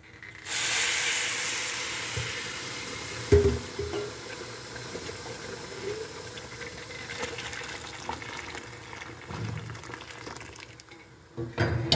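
Boiling water poured into a pot of rice freshly fried in oil and ghee: a rush of water noise that starts suddenly about half a second in and slowly dies down, with one knock about three seconds in.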